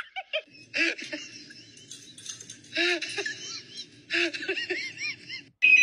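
A person laughing in short breathy giggles, several quick 'ha-ha' runs with pauses between them.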